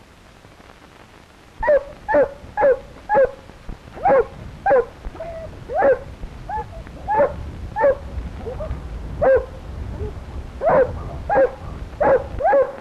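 A dog barking over and over, about two short barks a second, starting a couple of seconds in and keeping on with only brief pauses.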